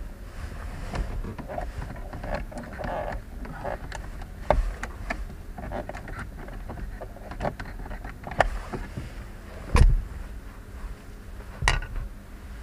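Hands and tools working at car dashboard trim and fasteners while the old climate-control unit is removed: scattered clicks and knocks, the loudest a sharp knock about ten seconds in, over a low steady rumble.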